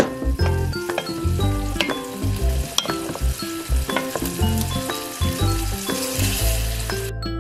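Chop suey of vegetables and crispy chicken sizzling in a pot as a wooden spoon stirs it, over background music with a steady bass pattern. The sizzle cuts off suddenly near the end while the music carries on.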